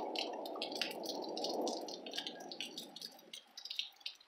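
Thunder rumbling and dying away about three seconds in, with crickets chirping steadily.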